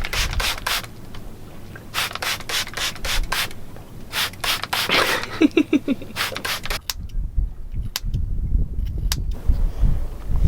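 Scissors snipping through wet hair in quick runs of cuts, with a few sparser single snips later on.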